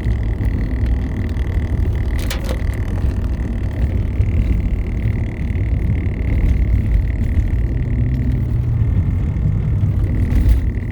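Steady high-pitched whine over the low rumble of a car driving along. It is a speed-related noise that goes away when the vehicle slows. One short click about two seconds in.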